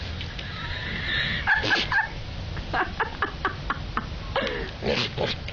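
An animal calling in short high cries, about a second and a half in and again near the end, with a quick run of short sharp sounds in between.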